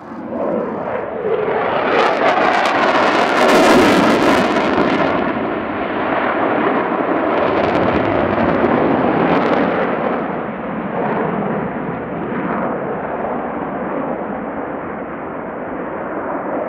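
Jet roar from an F/A-18C Hornet's twin turbofan engines as it turns overhead. It comes in suddenly, is loudest with a harsh crackle about two to five seconds in, then carries on steady.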